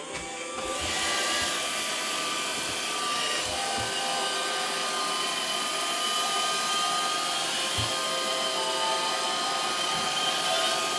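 iRobot Roomba 552 robot vacuum running: its motors spin up in the first second, then hold a steady whir with a few faint low knocks.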